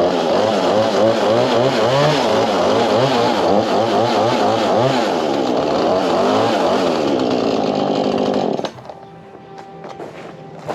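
Chainsaw running at high revs with its pitch wavering up and down as it cuts. About nine seconds in it drops abruptly to a much quieter steady hum.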